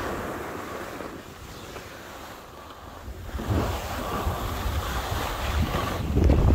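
Wind buffeting the microphone in a low, gusty rumble. It eases about a second in and grows louder again from about three and a half seconds.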